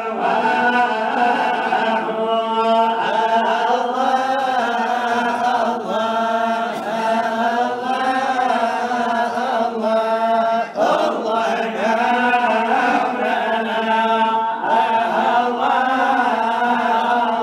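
Male voices in Sufi samaa: melodic Arabic chanting of a devotional qasida, with a lead voice's line bending up and down over a steady low held note.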